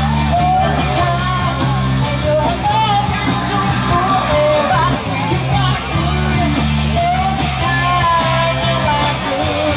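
An upbeat rock-style gospel song: a singing voice carrying the melody over guitar, a steady bass line and drums with cymbals.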